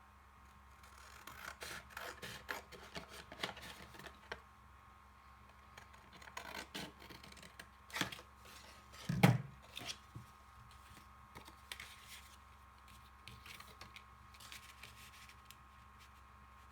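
Scissors snipping through paper and paper rustling in short, irregular strokes, with one louder thump about nine seconds in.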